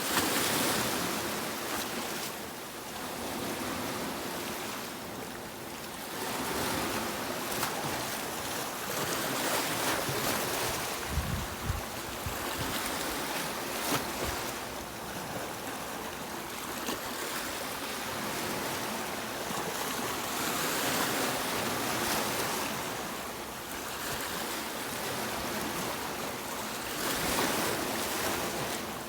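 Sea waves breaking and washing on a beach, the surf swelling and fading every few seconds.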